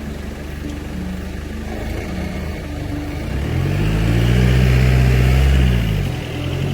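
Car engine running steadily, then revving up about halfway through, holding high and dropping back shortly before the end.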